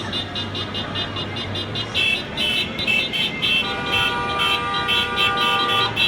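Car horns honking in celebration of a football win: a horn beeps repeatedly about twice a second, and another horn is held in one long steady blast from about three and a half seconds in, over traffic noise.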